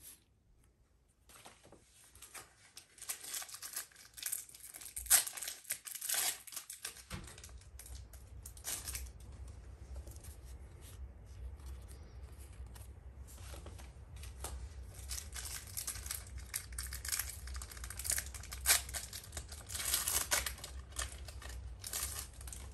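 Pokémon trading cards being flipped through by hand: repeated rustling, scraping and crinkling bursts as the cards slide over one another. A steady low hum comes in about seven seconds in.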